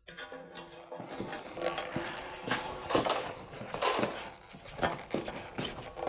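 Handling noise from a heavy router table top being manoeuvred by hand: scattered knocks, clunks and scrapes against the stand and support boards.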